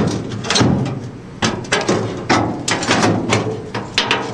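Rusty steel engine hatch lid from a 1973–79 VW Bus being set into its new opening, clanking and knocking against the freshly tacked-in steel flange in a string of about eight uneven metal knocks.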